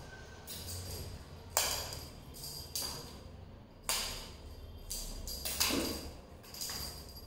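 Kittens pouncing and landing on a hard tiled floor while chasing a wand toy: a string of sharp taps and knocks, roughly one a second, with two close together near the end.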